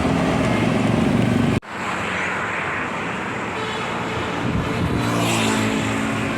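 Large tour buses running past on the road, their engines steady and loud. An abrupt edit cut about a second and a half in switches to another passing bus.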